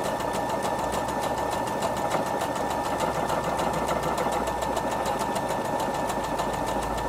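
Brother Innov-is NV1300 computerized sewing machine running steadily at speed, a constant motor whine under a rapid, even clatter of needle strokes, as it sews an enlarged decorative stitch with sideways multi-directional feed.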